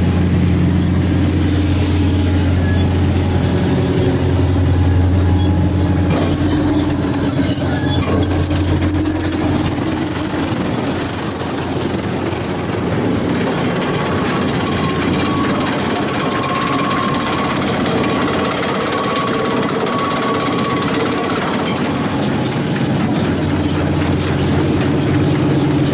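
Tractor engine running a Challenger LB34B 3x4 large square baler, with mechanical clatter from the baler. The deep engine hum eases about nine seconds in, and the clatter then becomes more prominent.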